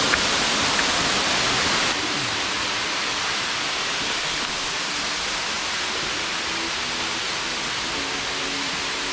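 Steady rushing of a nearby waterfall, dropping a little in level about two seconds in.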